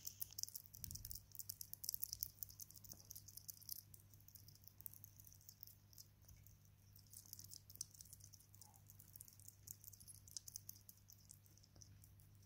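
African pygmy hedgehog chewing wet food: a rapid run of faint, wet clicks and smacks, thickest in the first few seconds and sparser after, over a low steady hum.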